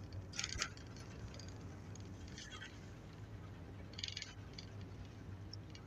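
Interior sound of a Nissan Diesel city bus with a Fuji Heavy Industries 7E body: a low, steady drone of the engine and drivetrain. Three brief high-pitched squeaks come about half a second, two and a half, and four seconds in.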